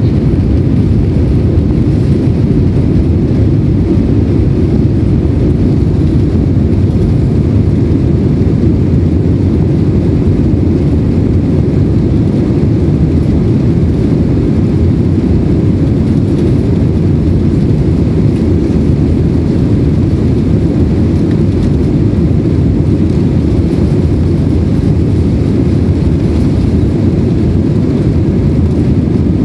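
Airbus A320's jet engines at takeoff thrust, heard inside the cabin during the takeoff roll: a loud, steady, deep rumble that holds level throughout.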